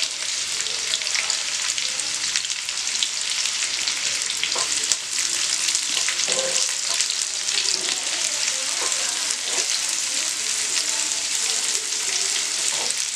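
Sliced onions and green chillies sizzling steadily in hot oil in a nonstick pan as they begin to sauté, stirred now and then with a wooden spatula that makes short scraping strokes.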